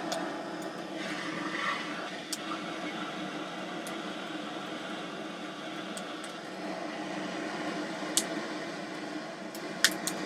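Restored Canedy-Otto hand-cranked forge blower whirring steadily, blowing air into a coal forge fire being lit with damp wood. A few sharp pops near the end.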